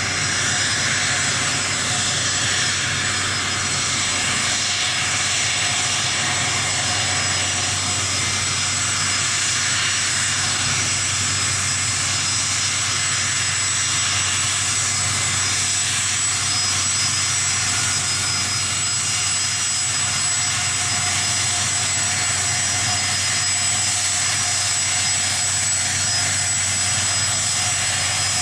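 Gulfstream business jet's two rear-mounted turbofan engines running at taxi power: a steady whine with thin high tones over an even rushing hiss.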